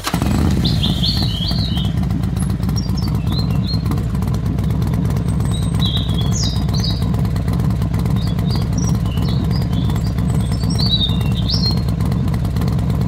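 Motorcycle engine idling steadily, a dense even low pulsing that starts abruptly at the outset, with birds chirping high above it.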